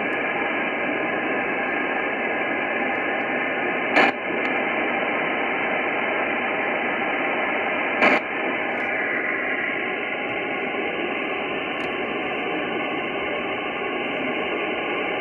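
Steady hiss from an Icom IC-9700 transceiver's speaker, receiving the RS-44 satellite's downlink in upper sideband with no station coming through. Two short sharp clicks cut through it, about four seconds apart.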